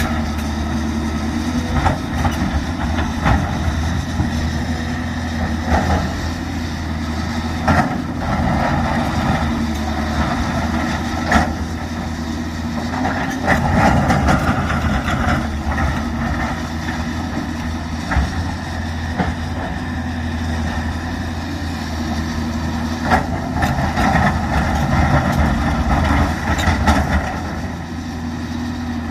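Heavy machinery's engine running steadily, with occasional short knocks and clanks.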